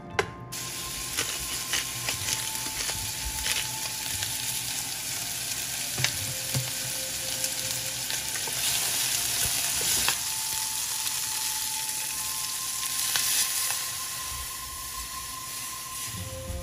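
Chicken thigh pieces sizzling as they fry in a stainless steel saucepan, with a steady hiss that swells in the middle. A wooden spatula stirs them, giving scattered sharp clicks and scrapes against the pan.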